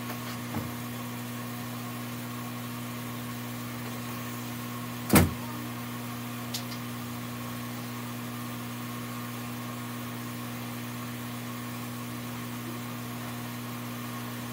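A machine's steady, even hum, with one short loud knock about five seconds in.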